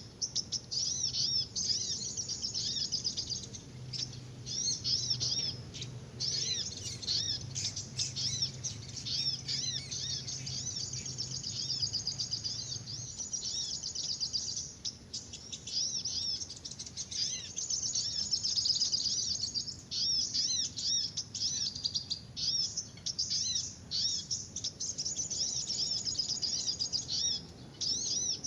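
Small songbirds chirping and twittering densely and without a break, in rapid high-pitched notes, typical of the noisy multi-species call recordings used to lure small birds to glue traps.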